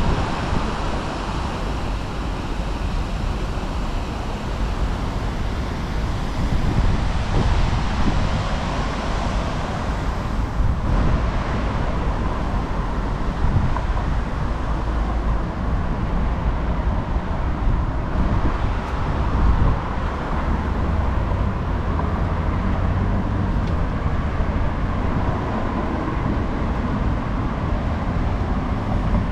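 Steady vehicle noise, a continuous low rumble with a hiss over it and no clear events.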